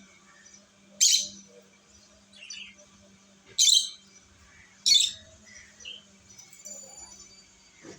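Pet lovebirds calling: three loud, sharp chirps about one, three and a half and five seconds in, with softer chirps between.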